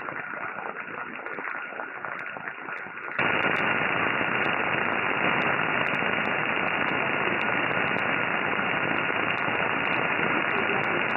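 Shortwave static from a software-defined radio in upper-sideband mode, tuned to a very weak station on 8812 kHz. At first it is subdued and uneven. About three seconds in it jumps suddenly to a louder, even hiss with a faint steady whistle, as the noise reduction is switched off. Scattered sharp clicks run throughout.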